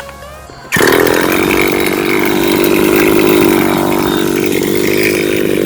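Brief music, then an abrupt cut under a second in to a Rovan Baja 5B RC car's two-stroke petrol engine running loudly and steadily. Its pitch dips slightly midway and rises again near the end.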